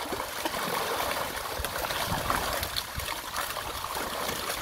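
Water splashing and churning as a netful of fish thrash in a fishing net hauled in at the edge of a pond, a steady sloshing with many small crackling splashes.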